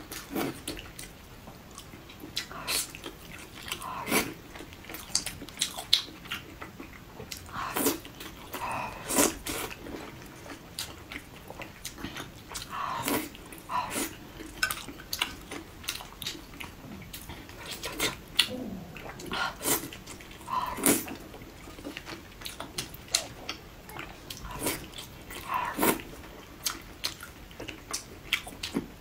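A person chewing soft, fatty braised pork belly close to the microphone. Wet, sticky mouth smacks and clicks come at irregular intervals.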